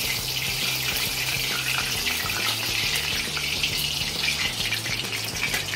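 Hot oil sizzling steadily in an iron kadhai as spring rolls deep-fry, a dense crackle of bubbling oil around the golden-fried rolls being lifted out with tongs.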